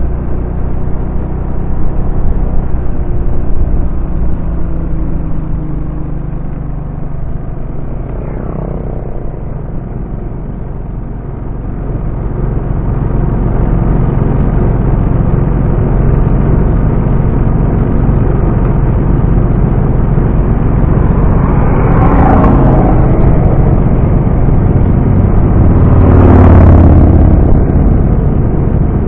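Motorcycle engine running while riding, heard through a camera mounted on the bike, with wind rumble on the microphone. The engine note falls as the bike slows early on, then rises again about twelve seconds in, with two brief louder rushes near the end.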